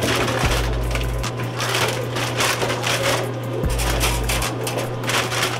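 Plastic Gatorade bottles clattering and knocking as they are loaded by hand into a soda vending machine's column, with a steady low hum underneath.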